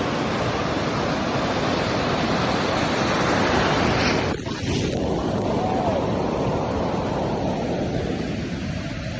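Ocean surf washing in steadily, with wind buffeting the microphone; the noise dips briefly about four seconds in.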